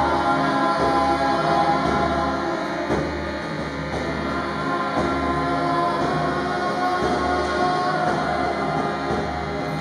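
Group chanting: many voices holding long, steady notes together.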